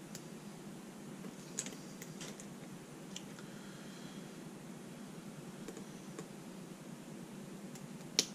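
Light metallic clicks and ticks, irregular and sparse, of a hook pick and tension bar working the pins of an American Lock S100 padlock, with one sharper, louder click near the end as the lock drops into a false set.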